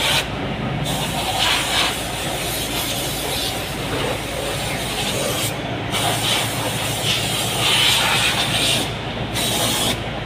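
A flash butt rail welding machine running: a steady low hum with a constant noisy hiss over it that swells into stronger hissing a couple of times.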